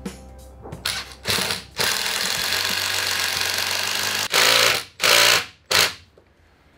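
Cordless drill running against the wooden keel timbers in bursts: two short ones, a steady run of about two seconds, then three quick bursts before it stops.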